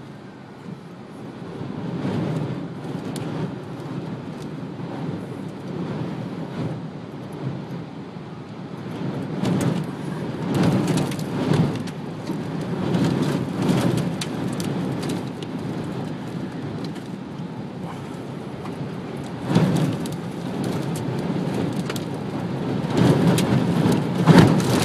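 Wind-driven rain and gusts from a tornado lashing a moving car, heard inside the cabin, swelling in surges that are strongest near the end.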